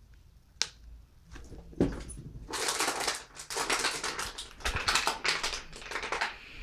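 A plastic water bottle crackling and crinkling in rapid, irregular bursts as a small dog chews it. The crackling starts a couple of seconds in, after a single knock.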